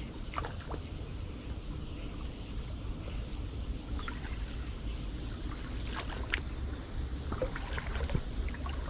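Steady low rumble, like wind on the microphone, with several bursts of rapid, evenly spaced high-pitched chirping pulses, about ten a second, and a few light clicks scattered through.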